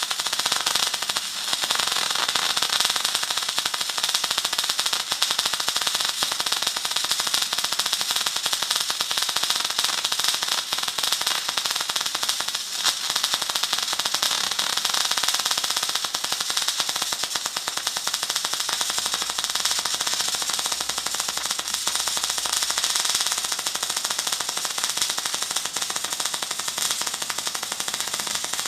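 Magmate 150 MIG welder's arc crackling and popping without a break as 0.9 mm wire is run in a long bead on thick steel plate, loud, popping like a two-stroke chainsaw. The welder turns it up flat out but suspects it is running too cold for steel this thick, perhaps because the wire speed is too fast.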